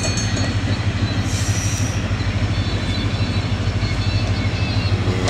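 Diesel locomotive engine running with a steady low, pulsing throb as the locomotive approaches slowly.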